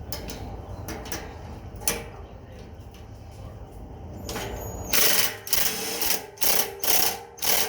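Cordless drill running in short trigger bursts, driving a nut tight, starting about five seconds in after a stretch of low rumble and a few clicks.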